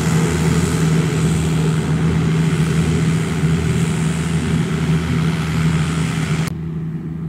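Kubota M7950DT tractor's V4300 four-cylinder diesel engine running steadily under load while it pulls a rotary tiller through a rice field, a steady low drone with a hiss over it. About six and a half seconds in, the sound abruptly turns duller and a little quieter.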